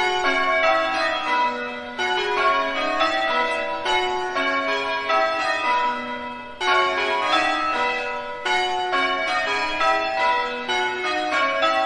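A peal of several church bells struck one after another in quick succession, each ringing on so the strikes overlap. The loudness jumps up suddenly a few times as a new round of strikes begins.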